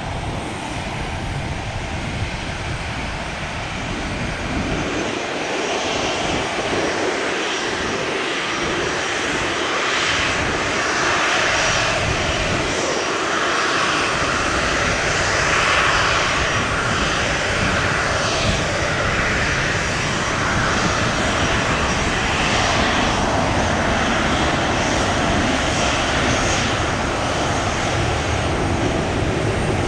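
Boeing 737 jet engines running with a rushing whine that grows louder over the first half, then holds steady.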